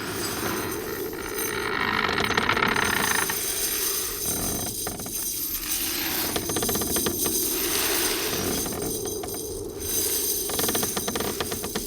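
Wooden stairs creaking: a continuous run of dense, rapid creaks and clicks without pauses, dipping briefly about ten seconds in.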